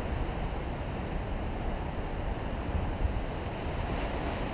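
Wind buffeting the microphone over a steady wash of sea surf on the rocks.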